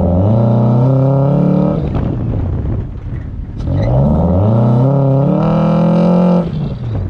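A 2000 Toyota RAV4's engine revving hard under acceleration, twice. Each time the pitch climbs and holds, then drops away, and the second rev cuts off sharply near the end.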